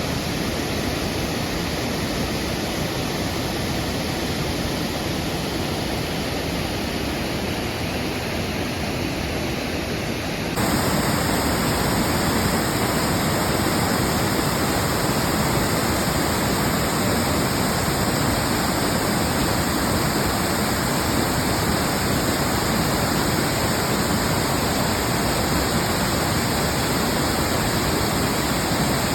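Waterfall rushing steadily, a constant wash of water noise; it turns suddenly louder and fuller about ten seconds in.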